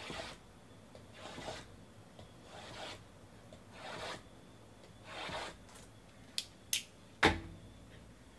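A small blade slitting the sealed seams of a stack of card boxes, five slicing strokes about a second and a half apart. Near the end come two light clicks and then a sharper knock, the loudest sound.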